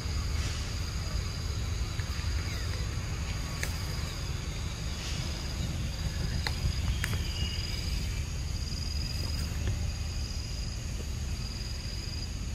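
Insects droning steadily at a high pitch over a constant low rumble, with a few faint clicks.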